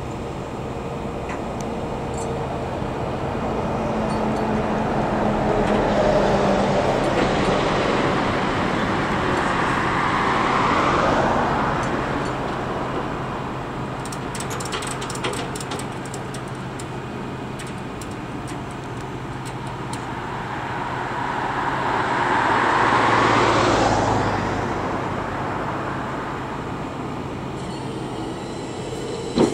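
Road traffic passing a roadside: two vehicles go by close, the sound building slowly and falling away in pitch as each passes, one around ten seconds in and the other about two-thirds of the way through. A sharp click comes right at the end.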